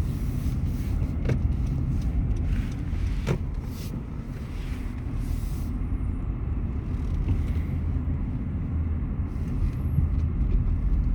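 Car driving, its road and engine rumble heard from inside the cabin, with a couple of light clicks.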